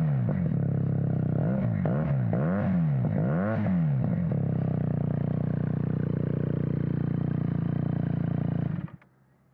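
QJ Motor SRK 400 parallel-twin engine revved through an aftermarket exhaust: a run of quick throttle blips over the first four seconds, then a steady idle. The sound cuts off suddenly near the end.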